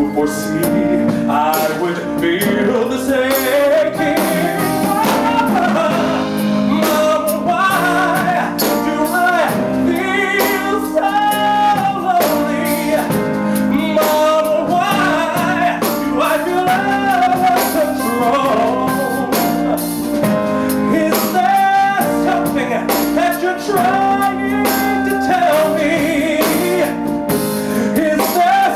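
Male vocalist singing a gliding melody with long held notes over a live band's sustained chords.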